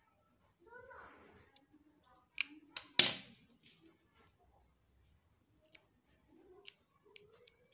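Sharp clicks and knocks of a hot glue gun being handled on a hard tabletop: a cluster of loud knocks about three seconds in, then scattered lighter clicks.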